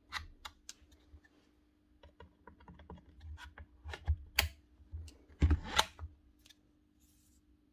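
Scattered clicks and sharp knocks of pliers and metal and plastic parts being handled as a Bosch GSH4 hammer's motor is taken apart and its armature lifted out of the housing. The loudest knocks come about four to six seconds in.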